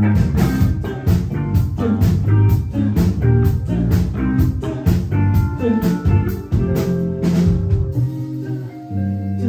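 Live band playing an instrumental passage with a steady drum beat of about two and a half hits a second over bass and guitar; the drums drop out about eight seconds in while the other instruments keep sounding.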